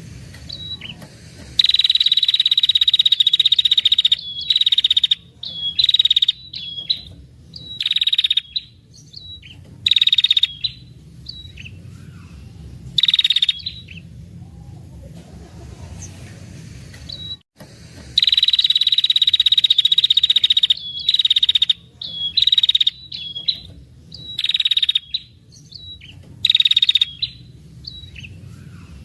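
Female red-headed prenjak, a small Indonesian warbler, giving its long 'ngetir' trill. It is a series of harsh, buzzing trills: two long ones of two to three seconds and many short bursts between them. It is the call of a female used as a lure to draw males.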